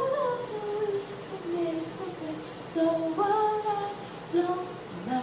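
A girl singing unaccompanied, in short phrases of held notes that slide up and down in pitch.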